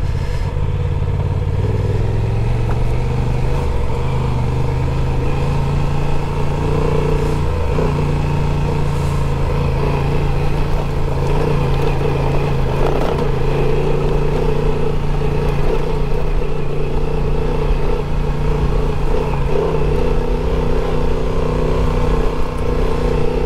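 Adventure motorcycle engine running steadily, heard on board while riding a gravel trail, with wind and road noise over the microphone. The engine note shifts in pitch about four seconds in.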